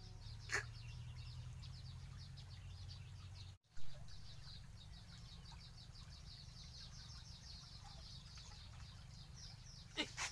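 Steady low rumble of a fast-flowing, swollen creek, with a bird chirping in quick, even repeats throughout. About three and a half seconds in the sound cuts out for an instant and comes back with a short pop.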